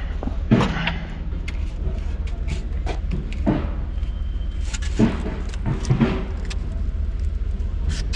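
A steady low engine hum with scattered knocks and clanks of construction work over it.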